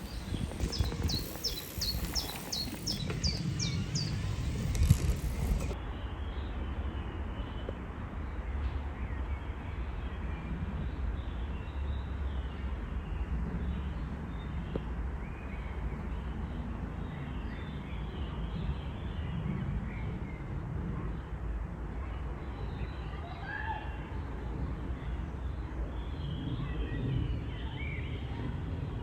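Countryside ambience: a low steady rumble under scattered faint bird calls, with a bird's quick run of about ten high chirps in the first few seconds.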